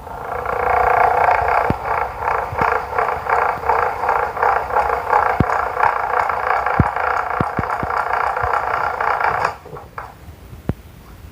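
Electric fan making a loud buzzing drone that wavers in level, with scattered clicks; it cuts off about nine and a half seconds in.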